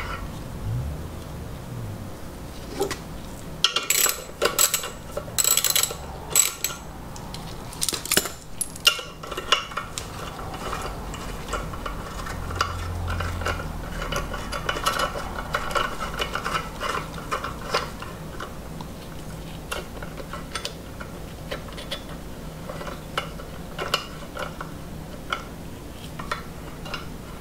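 Small metal clinks and clicks as a bolt-type valve spring compressor is fitted and lined up over a valve spring on a Honda K-series cylinder head. A cluster of sharp clinks comes about four to nine seconds in, then lighter ticking and clinking, thinning out to scattered clicks.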